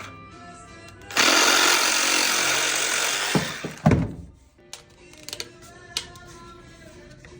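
A plumbing power tool runs loudly for about two seconds, then two sharp thumps, over background music.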